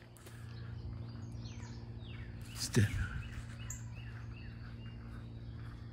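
Birds chirping in woodland, with one sudden loud short sound about three seconds in, over a steady low hum.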